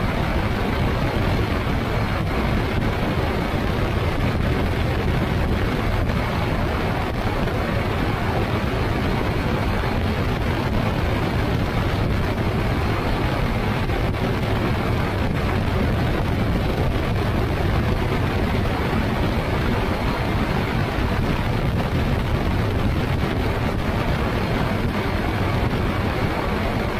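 Motorized hang glider (ultralight trike) in flight: its engine and pusher propeller running steadily, mixed with wind noise on the microphone.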